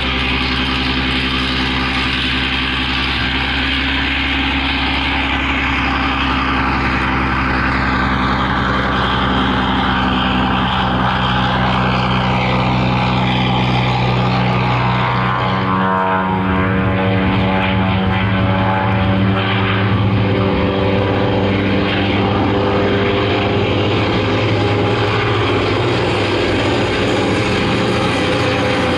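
Propeller aircraft's piston engine running steadily, with a sound falling in pitch over several seconds. About halfway through, the engine note changes to a different, steady drone.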